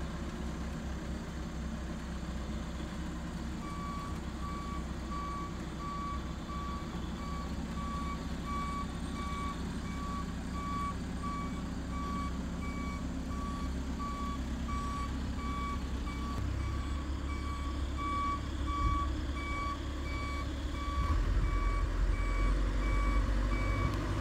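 Heavy construction machine's back-up alarm beeping at an even pace while it reverses, starting a few seconds in, over its diesel engine running low, which grows louder near the end.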